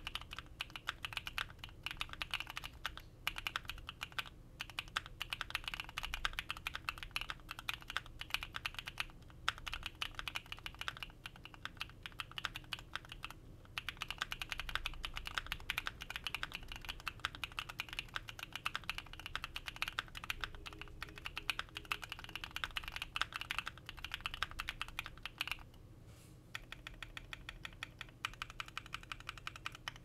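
Fast typing on a custom Bakeneko60 60% mechanical keyboard: Designer Studio Graphite Gold factory-lubed linear switches on an FR4 plate, Domikey ABS keycaps, cast aluminum case with polyfill dampening. A dense stream of keystrokes with a few brief pauses, turning into sparser, evenly spaced strokes near the end.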